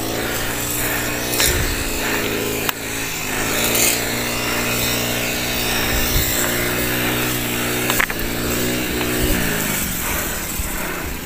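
A small petrol engine running nearby, its pitch rising and falling several times as the throttle changes, over a rushing noise, with an occasional click.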